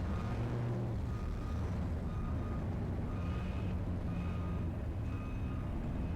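A vehicle's reversing beeper sounding about once a second over a steadily running engine.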